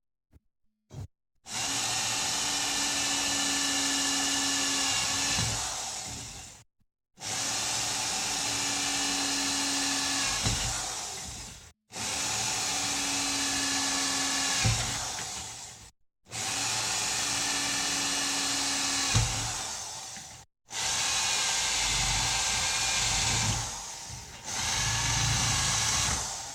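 Electric drill boring drainage holes in a PVC window frame, run in six bursts of about four to five seconds, each winding down as it stops.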